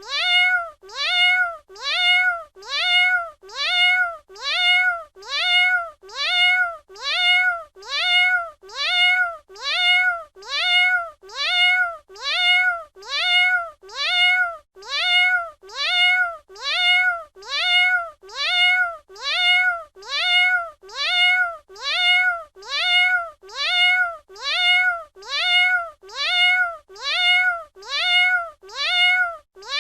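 A domestic cat's meow repeated over and over, a bit faster than once a second, each call the same rising-then-falling 'miaow' as if one recording is looped.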